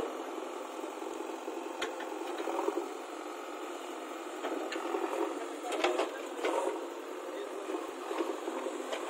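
JCB 3DX backhoe loader's diesel engine running steadily, with a few faint knocks.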